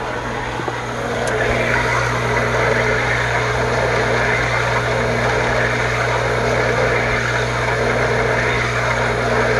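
Goulds jet well pump's electric motor running with a steady hum, water rushing through the pump and piping; the rushing grows louder a little over a second in, after a brief click, and then holds steady.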